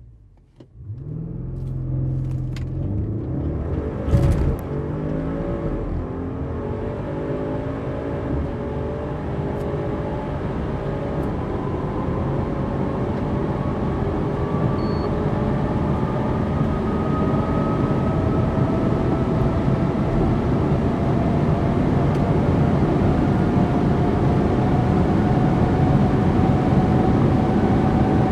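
Audi RS6 Avant Performance's twin-turbo V8 accelerating flat out from a standstill. The engine note climbs and drops through quick upshifts in the first few seconds, with a thump about four seconds in. It then rises slowly and steadily as wind and road noise build at very high speed.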